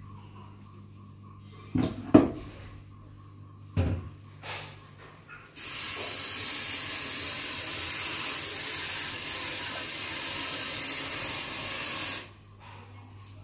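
A few knocks, then a kitchen tap running steadily into a metal rice-cooker pot of raw rice for about six seconds, filling it with water to rinse the rice, and shut off near the end.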